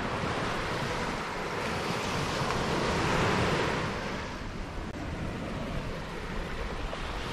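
Surf washing onto a sandy beach, a steady wash that swells about three seconds in and then eases off, with some wind noise on the microphone.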